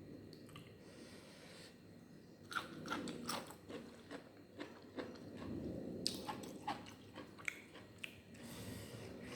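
Close-up eating sounds: from about two and a half seconds in, a run of crisp bites and crunches with wet chewing and mouth smacks. The food is a lunch of fried tofu and tempeh, omelette and raw vegetables.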